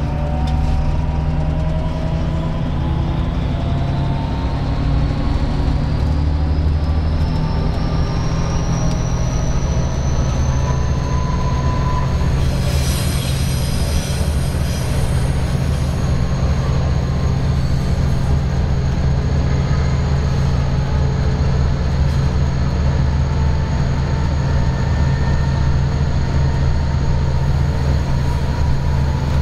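Vossloh G 1206 diesel-hydraulic locomotive running under power, heard from inside its cab: a steady low engine drone with a whine that rises in pitch over the first ten seconds or so. Wheels squeal briefly on a curve about thirteen seconds in.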